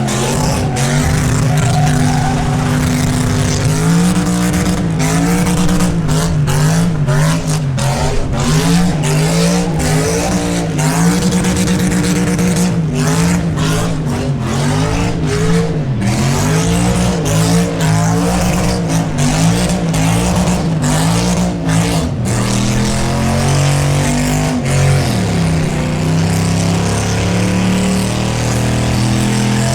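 V8 car doing a burnout: the engine held at high revs, its pitch rising and falling again and again as the throttle is worked, over the hiss and screech of spinning rear tyres. The revving turns steadier near the end.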